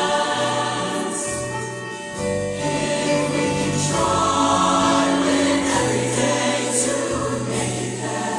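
Mixed show choir of male and female voices singing long held chords in harmony, with a brief drop in loudness about two seconds in before the chord swells again.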